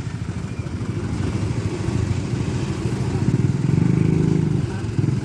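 Vehicle engine running hard under load, revving up louder about three seconds in and easing off near the end, as the vehicle tries to pull its sunken tyres out of a muddy road.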